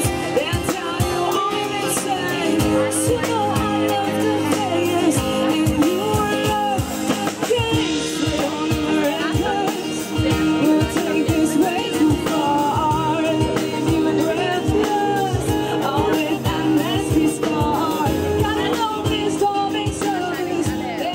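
Small band playing a pop song: a singer over acoustic guitars and a steady drum beat.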